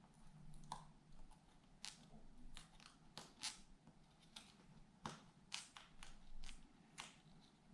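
Faint, irregular clicks and light scratches of small plastic parts and tools being handled on an opened tablet, about a dozen short ticks.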